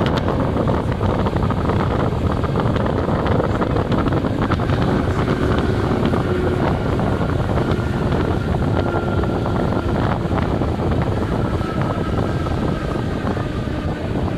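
ČD class 451/452 ('žabotlam') electric multiple unit running along the line, heard on board: a steady low rumble of wheels on rail with faint steady whining tones over it.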